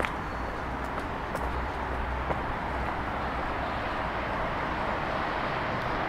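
Steady hum of city road traffic in the distance, an even wash of noise with a low rumble.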